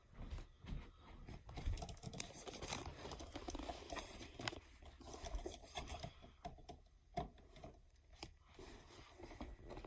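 Screwdriver scraping and clicking against the screw of a wall outlet cover plate as it is worked loose, mixed with rustling handling noises and many small irregular clicks.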